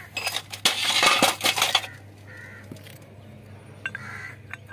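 Metal hand tools and steel bushes clinking and clanking against each other: a quick run of sharp metallic clinks over the first couple of seconds, then a few lighter clicks near the end.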